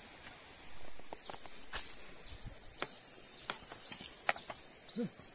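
Steady high-pitched drone of forest insects, with scattered sharp clicks and snaps through it, the loudest about four seconds in.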